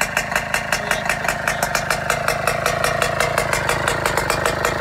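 Kawasaki Ninja two-stroke engine running with no exhaust pipe fitted. The open exhaust port gives a rapid, even crackle that sounds like a chainsaw.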